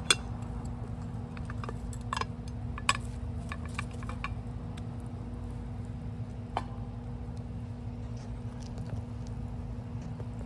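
Wood campfire crackling, with a few sharp pops scattered through, over a steady low hum.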